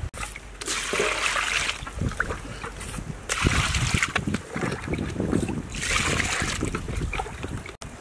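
Water bubbling and splashing at a boil around pieces of cow's feet in a cooking pot. The hissing bubbling swells and eases about three times.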